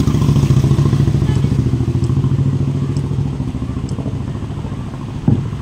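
A steady low engine drone with a fast pulse, fading a little toward the end, and a single thump about five seconds in.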